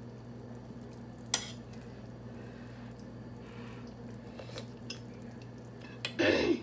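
Metal ladle and spoon clinking against a stainless steel soup pot as the soup is tasted and stirred: one sharp clink, then a few light taps, over a steady low hum. Just before the end comes a short loud vocal sound that falls in pitch.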